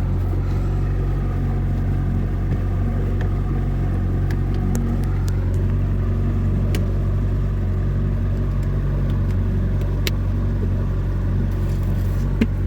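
Boat engine running steadily with a low, even hum, with a few light clicks and two sharper ones near the end.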